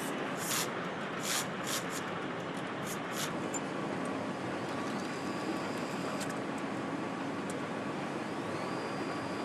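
Steady machine hum of an engine assembly line, with several short bursts of hiss in the first few seconds. Twice a power nutrunner spins up with a rising whine that holds level as it runs a bolt down on the engine's cover, once about five seconds in and again near the end.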